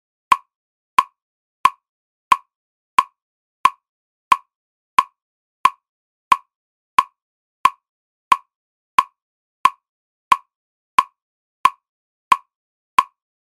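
Metronome clicking a steady beat of about 90 per minute, three short identical ticks every two seconds, with silence between them.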